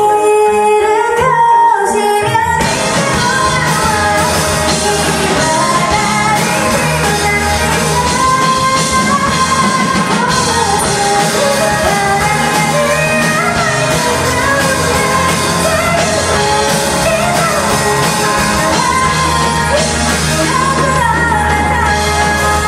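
Rock band playing live with a lead singer. The voice starts over light backing, and the full band comes in about two and a half seconds in.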